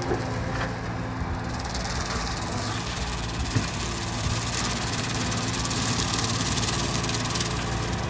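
Skid steer engine running steadily, with a rushing noise joining about a second and a half in and one sharp click midway.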